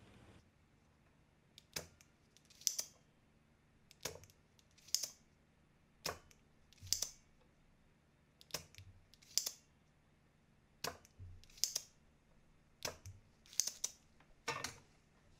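Spring-loaded desoldering pump (solder sucker) worked over and over, about every two seconds: a lighter click as it is cocked, then a louder snap with a short hiss as the plunger fires and sucks molten solder from the pins of a mouse button switch.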